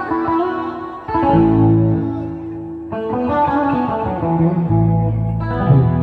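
Red Stratocaster-style electric guitar playing a melodic line of sustained notes through a Boss GT-100 multi-effects unit, with deep low notes sounding beneath from about a second in.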